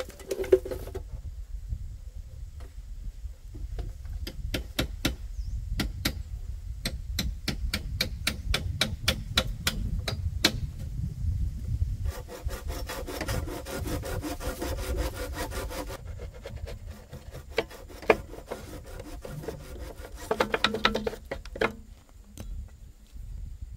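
Bamboo being worked by hand: a quick run of sharp clicks and taps, then a few seconds of steady rubbing and scraping of wood, with scattered knocks later.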